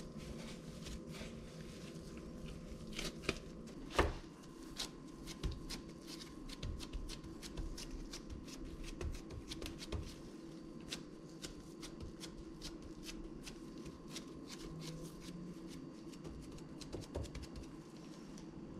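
Gloved hands handling and pressing soft potato dough into a frying pan: a dense run of rapid crackling clicks from the disposable gloves and dough, with one heavier thump about four seconds in.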